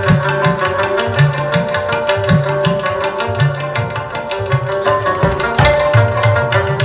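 Background folk music: quick hand-drum strokes with low notes that bend in pitch, under plucked strings and a steady held drone.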